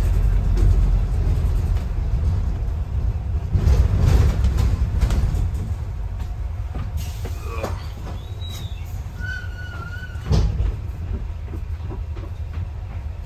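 Double-decker bus heard from inside its upper deck: a steady low rumble of engine and road with the body rattling and knocking over a bumpy street. Brief squeals come as it slows down, and there is a louder thump about ten seconds in.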